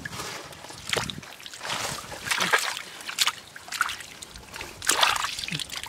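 Hands scooping and sloshing through shallow muddy water and matted roots, with irregular splashes every second or so.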